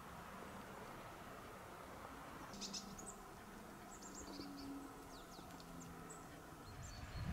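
Small songbirds giving short, high chirps, a scatter of quick calls starting a few seconds in, over a faint steady hiss.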